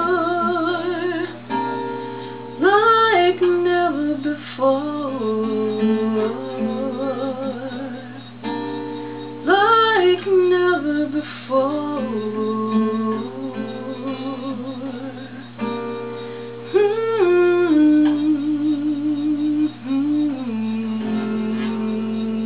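Solo acoustic guitar playing sustained chords and a short repeating melodic phrase, with a woman's voice holding the last sung note with vibrato at the start.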